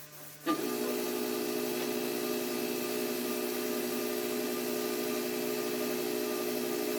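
A motor-driven paint sprayer switches on about half a second in and runs steadily, giving an even motor hum over a strong hiss.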